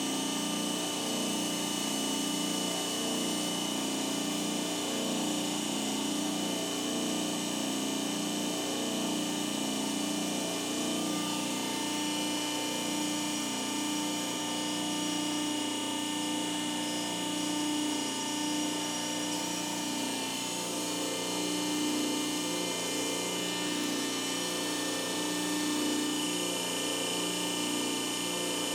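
Homebuilt CNC press brake running: a steady machine hum carrying several constant whining tones.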